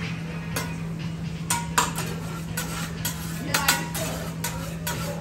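Metal spatulas clinking and scraping on a steel teppanyaki griddle: a run of sharp, irregular clinks, a couple of them in quick pairs, over a steady low hum.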